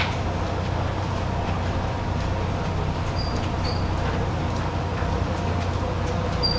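Steady low rumble of road noise, with a few brief faint high chirps about halfway through and again near the end.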